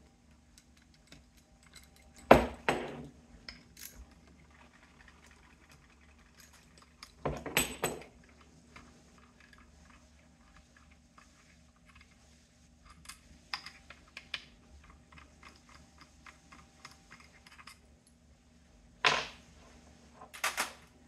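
Hand tools working on the bolts of a motorcycle engine's generator: metal clinking and clanking, with a few loud sharp clanks spread through and faint ticking and small clicks between them.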